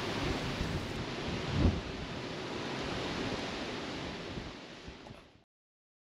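Wind rushing over the action camera's microphone, a steady hiss with low rumbling, and one louder low buffet from a gust a little after one and a half seconds in. It fades out over the last second and cuts to silence just after five seconds.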